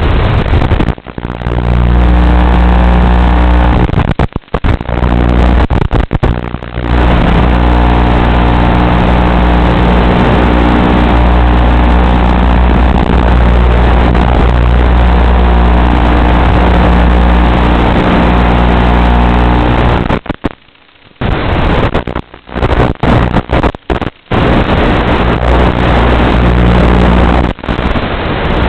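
Electric motor and propeller of an FPV aircraft at steady throttle, heard through its onboard microphone over the analog video link, with wind noise. The sound cuts out briefly several times, longest about two-thirds of the way through.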